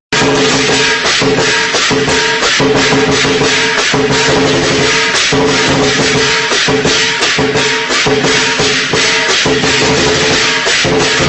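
Music with a steady, rhythmic percussion beat of shaker-like strokes over sustained held notes.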